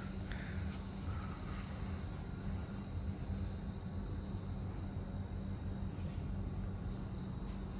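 Crickets chirping steadily and continuously, over a low steady hum.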